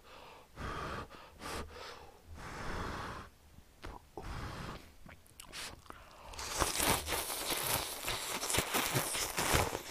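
Close-miked eating of budae-jjigae ramen noodles: chewing and short slurps, then from about six and a half seconds in a long, loud slurp with the bowl raised to the mouth, sucking in noodles and broth.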